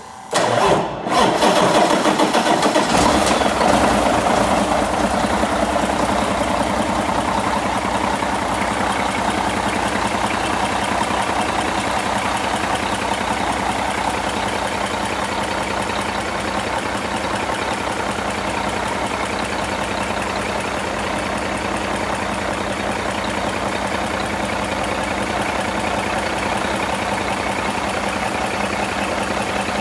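Cummins ISX inline-six heavy-duty diesel engine starting about a second in, then idling, its level easing gradually as it settles into a steady idle.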